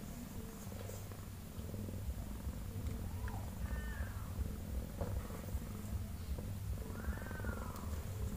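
Mother cat purring steadily while newborn kittens are put to her to nurse. A newborn kitten gives short, thin, high mews a few times: two around three to four seconds in and one at about seven seconds.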